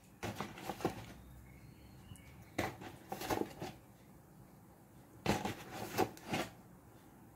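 Spoonfuls of maida being added to a steel mixing bowl: three short bursts of spoon taps and scrapes, each about a second long, a couple of seconds apart.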